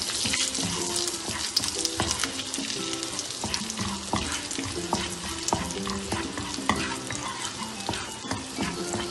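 Chopped garlic sizzling in hot melted butter in a frying pan, crackling steadily while a wooden spatula stirs and scrapes it around the pan.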